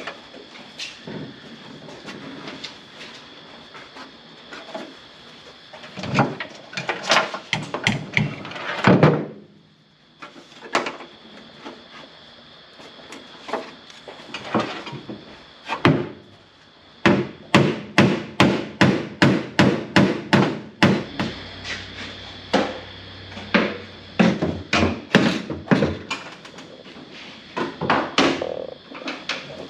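Hammer tapping on car body metal, bodywork on the MG Midget's panel. Scattered knocks, then a quick even run of about three blows a second near the middle, then more spaced taps.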